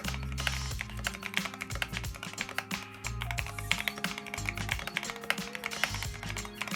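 Typing on a custom mechanical keyboard: an Akko MonsGeek MG75 kit fitted with lubed Outemu switches and SA-profile keycaps, giving a quick, continuous run of keystroke clacks. Background music with a steady bass line plays underneath.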